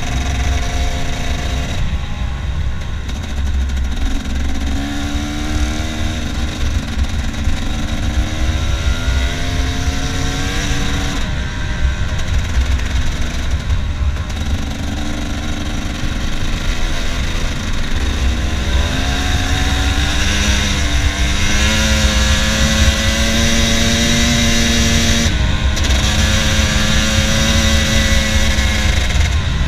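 KTM dirt bike engine riding along under throttle, its pitch climbing in repeated runs with short breaks between them as the rider shifts up and rolls off, over a heavy low rumble of wind on the microphone.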